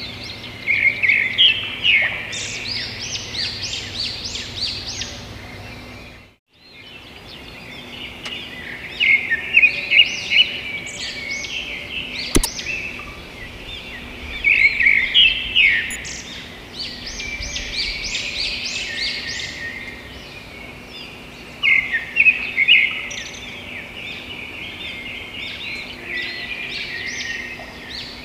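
A chorus of birds chirping and twittering in quick runs of short, high calls. The sound drops out briefly about six seconds in, and there is a single sharp click near the twelve-second mark.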